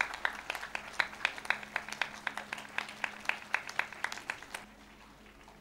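A congregation clapping in time together, about four claps a second, stopping a little over four and a half seconds in.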